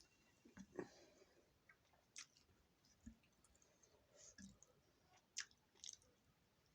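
Faint, irregular clicks and soft taps, about ten scattered through a few seconds of near quiet.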